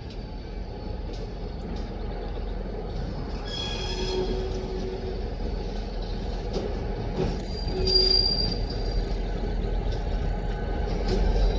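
Heavy loaded freight train rolling, a steady low rumble that slowly builds, with its wheels squealing in thin high tones about four seconds in and again near eight seconds.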